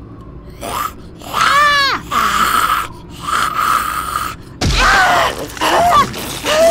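Voice-acted zombie attack: a woman's terrified scream, then rasping zombie snarls, a sudden thud about four and a half seconds in, and her pained cries as she is bitten.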